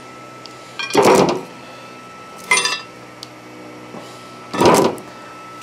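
Heavy steel end bell of a Hitachi three-phase motor clanking against the motor housing as it is fitted back on: three metallic clanks with a short ring, about a second in, at two and a half seconds, and near the end.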